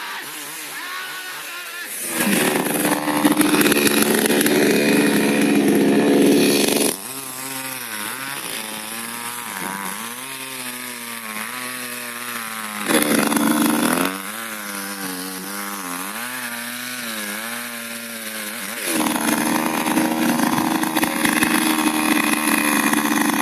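Two-stroke chainsaw running at full throttle three times: for about five seconds starting two seconds in, briefly near the middle, and again through the last few seconds. In between it drops back to a wavering idle.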